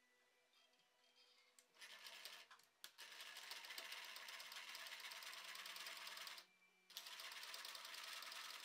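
Domestic electric sewing machine stitching a seam: a couple of short bursts about two seconds in, then a steady run, a brief stop about six and a half seconds in, and it runs again.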